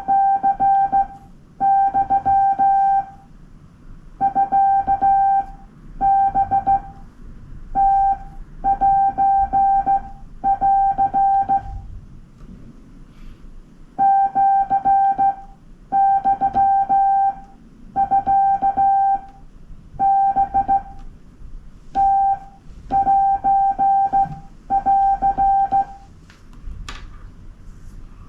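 Morse code (CW) sent by hand on a straight key, heard as the ham radio's sidetone: a single mid-pitched beep keyed on and off in dots and dashes, in character groups about a second long with short pauses between them. The keying stops a couple of seconds before the end, followed by a few faint clicks.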